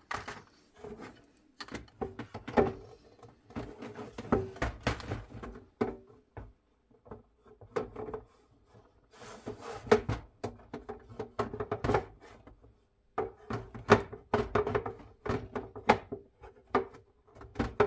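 Hard plastic stackable storage drawer units knocking, clicking and scraping against each other and the tabletop in irregular clusters as they are pushed and wiggled to slot together, the joints not locking.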